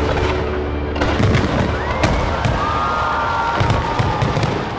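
Aerial firework shells bursting overhead, many bangs in quick succession and overlapping.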